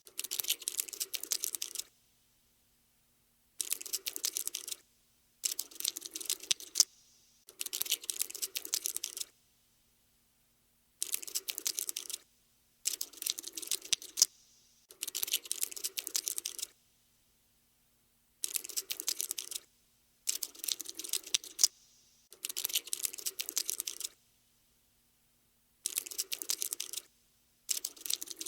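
Cockroach scuttling sound effect: rapid, dry, typing-like clicking of skittering legs, in about a dozen bursts of one to two seconds each with silent gaps between them.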